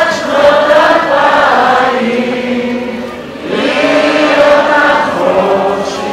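A large crowd of demonstrators singing together, holding long notes that step up and down in pitch, with a short break between phrases about three seconds in.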